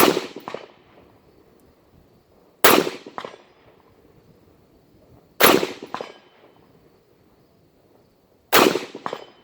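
Four single rifle shots from a Ruger AR-556 MPR semi-automatic rifle in 5.56 NATO, fired slowly at about three-second intervals. Each loud crack is followed about half a second later by a fainter second crack.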